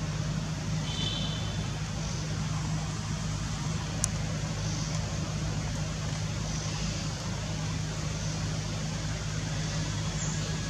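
A steady low motor hum under a constant hiss, with one sharp click about four seconds in.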